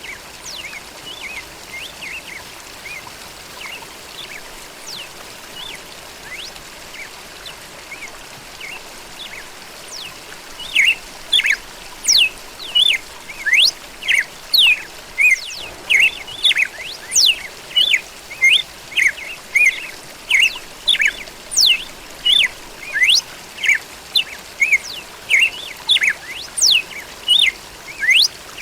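Red-cowled cardinal (galo-da-campina) singing: only faint chirps at first, then from about ten seconds in a loud, fast run of repeated sharp notes, many sweeping steeply down in pitch, over a steady background hiss.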